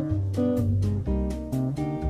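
Background music: acoustic guitar strumming chords over a walking bass line.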